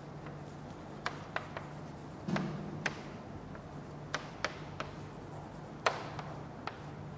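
Chalk tapping and clicking against a blackboard while writing: about a dozen sharp taps at irregular intervals as the strokes land.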